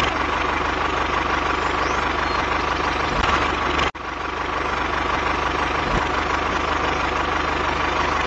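Steady tractor-engine running sound with an even low pulsing, dropping out for a moment about four seconds in.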